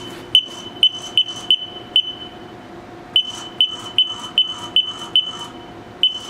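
Haas CNC control beeping in quick, evenly spaced short high beeps, about three a second, as the programmable coolant nozzle is jogged up and down. The beeps come in runs, with a break around two seconds in and a shorter one near the end.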